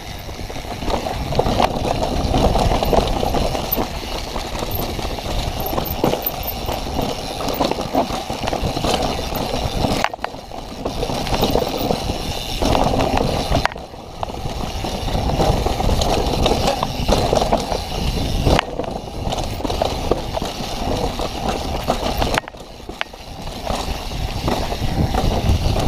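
Mountain bike riding down a rough trail: tyres rolling over dirt and rock with the bike rattling, and wind rushing over the microphone. The noise is continuous, easing briefly a few times.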